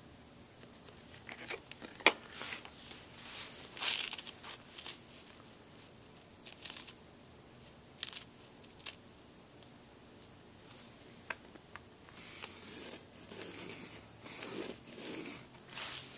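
A ruler and a leather sheet being handled and shifted on carpet, with scattered light taps and rustles. Near the end a pencil scratches along the ruler's edge in several short strokes, marking a cutting line on the leather.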